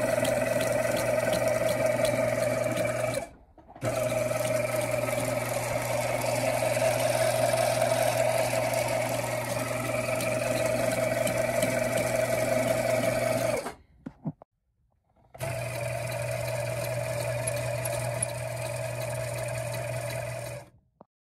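TuffSew walking foot sewing machine running steadily, its small domestic motor driving the needle through a belt speed reducer while stitching leather. The sound breaks off briefly about three seconds in, then for over a second near the fourteen-second mark. The last, slightly quieter stretch is the machine winding a bobbin.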